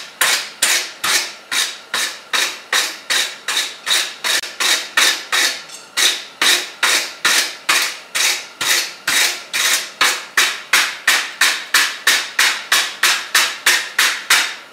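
Hand wire brush scrubbed back and forth over a freshly forged mild-steel leaf on the anvil, scraping off the forge scale in steady, evenly spaced strokes, about three a second.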